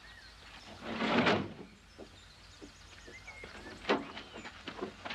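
Birds chirping against an outdoor background, with a brief rushing swell about a second in, then a series of sharp knocks and clicks near the end.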